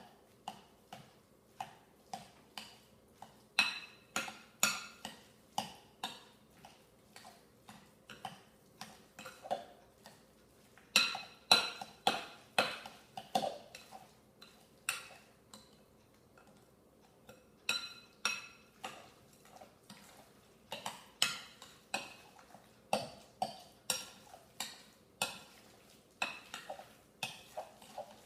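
A utensil knocking and clinking against a bowl while egg salad is stirred and mixed, in short irregular taps about one or two a second, with a brief pause about halfway through.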